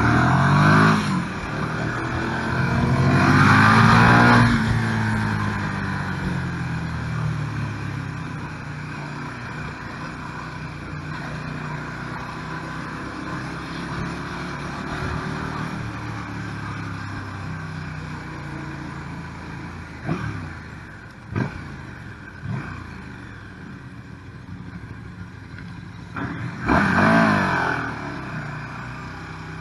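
KTM 1290 Super Duke R's V-twin engine heard from the rider's seat: it revs up hard a few seconds in, then winds down on a long, slowly falling note. Three short sharp blips come about two-thirds of the way through, and the engine opens up again near the end.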